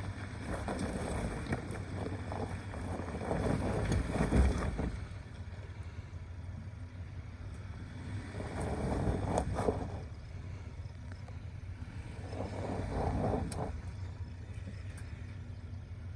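2019 Ford Ranger's 2.3L EcoBoost four-cylinder engine pulling the truck up a loose-rock slope at a crawl, swelling three times as throttle is added, the first surge the loudest. Rocks crunch and click under the tyres during the surges.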